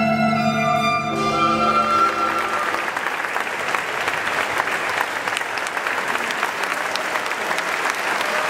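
Live ensemble music with violin holds its final sustained notes and dies away about two seconds in. The audience then applauds steadily.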